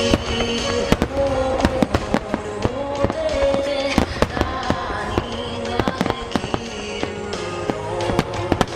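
Firework shells bursting in quick, irregular succession, several sharp cracks a second, over music playing with the display.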